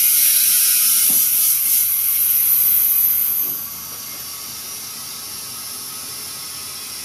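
Compressed air hissing from a tyre inflator into a freshly mounted car tyre on a steel rim. The hiss is loud at first, then drops to a quieter steady hiss about three and a half seconds in.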